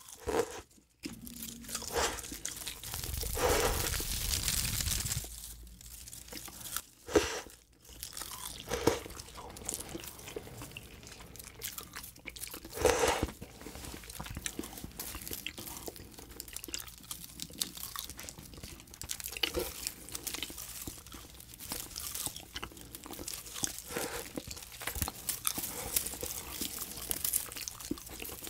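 Close-up ASMR eating sounds of edible tape (oblate starch film): crunchy chewing and biting with crinkling and tearing as strips are pulled off and bitten, with a few louder crunches among steady small ones.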